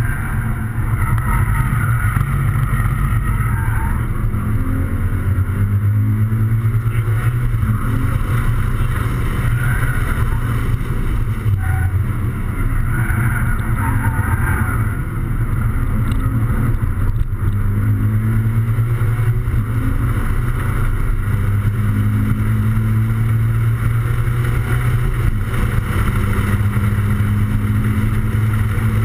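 Toyota 86's 2.0-litre flat-four engine heard from inside the cabin, pulling hard through the gears of a manual gearbox. Its note climbs and then drops back at each shift, about six times.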